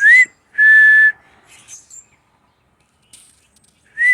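A person whistling a two-note call to the birds: a short rising note, then a longer steady note. It is given twice, the second time near the end, with breath hiss audible in each note.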